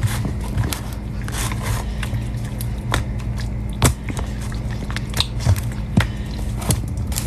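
A hand mixing pork chops in a wet buttermilk-and-flour coating in a plastic tub: squelching, sticky squishing with scattered sharp knocks against the plastic. A steady low hum runs underneath.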